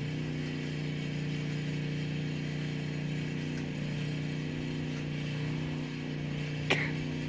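Car engine idling with a steady hum. Near the end, one sharp metallic clank from the wire cage trap being handled.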